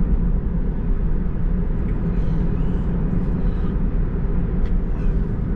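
Steady road and tyre rumble heard inside a moving Tesla's cabin while the electric car cruises along.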